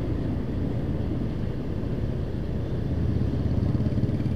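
Motorcycle engine running steadily at low riding speed, a low hum with a rush of road noise over it.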